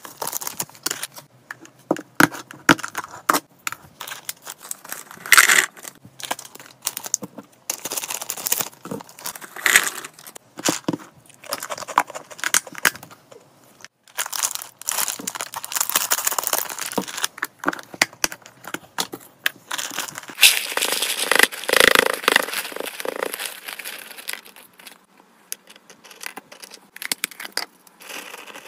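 A plastic treat bag crinkling and rustling as it is handled and opened, with dry crunchy pet treats poured and rattling into a plastic storage box. Scattered sharp clicks and taps come throughout, with the densest crinkling in the second half.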